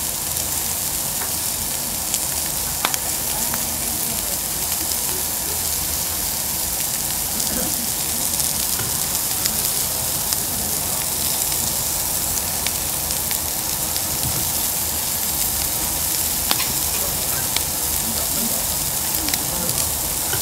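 Pork neck slices and garlic sizzling on a round tabletop barbecue grill plate: a steady frying hiss with a few faint clicks.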